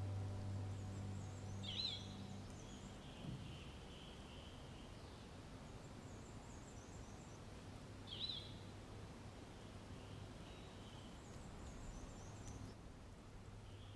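Faint birds chirping over a steady outdoor hiss, with short high chirp phrases about two seconds in and again about eight seconds in. The tail of background music fades out in the first few seconds.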